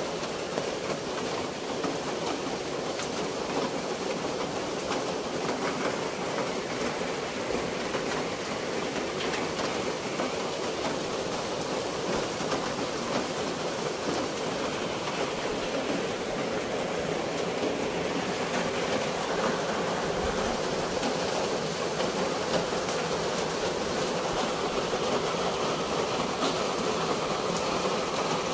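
Steady outdoor nature ambience: an even rushing noise with faint scattered ticks, unchanging throughout.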